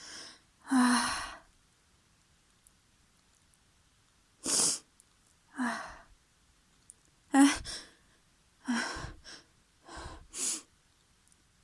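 A person sneezing over and over, about seven messy sneezes spaced one to three seconds apart, each a short voiced catch breaking into a noisy blast.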